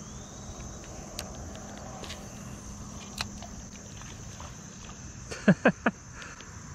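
Steady high-pitched drone of summer insects, with a few faint clicks. Near the end comes a loud, quick three-part vocal outburst that falls in pitch, a person's startled exclamation.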